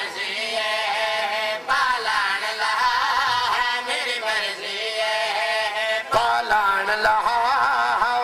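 A man chanting a Punjabi mourning recitation (zakiri) in a wavering, ornamented melody into a microphone, in long phrases with short breaks.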